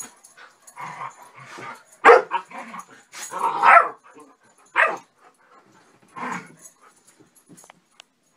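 A Labradoodle puppy and two larger dogs play-fighting, giving short bursts of barks and yips, loudest about two seconds in and again a second later; the barking dies away about seven seconds in.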